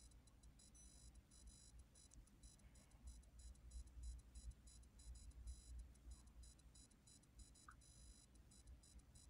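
Near silence: room tone with a faint low rumble and a faint high-pitched whine that flickers rapidly on and off.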